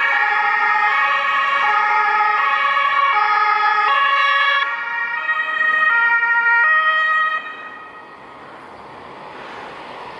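German two-tone emergency sirens (Martinshorn) on a rescue ambulance and an emergency doctor's car, stepping between a high and a low note, each held for under a second, with the two horns overlapping out of step. The sirens cut off about seven and a half seconds in, leaving the fainter noise of the vehicles' engines and tyres.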